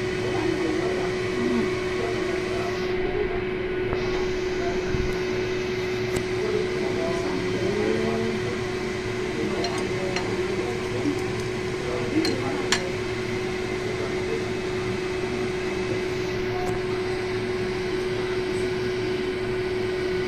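Steady motor hum of a kitchen appliance with one constant tone, and a few light clicks about halfway through.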